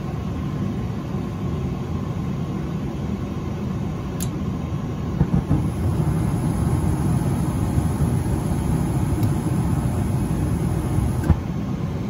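Gas furnace running with a steady low rumble. A click comes about four seconds in. About a second later the burners light and the rumble grows louder, with a faint high hiss over it. About a second before the end the flame cuts out with a click: with the flame sensor removed, the control cannot prove the flame and shuts the gas off on this second ignition try.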